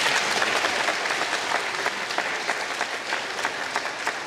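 Audience applauding, loudest at the start and easing off a little, after an award winner is announced.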